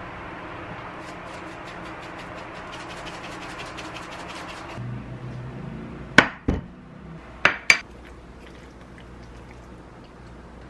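Spaghetti in tomato sauce crackling and sizzling in a Neoflam Fika frying pan for about five seconds, then four sharp knocks and clinks as the pan and utensils are set down on a table, the first the loudest.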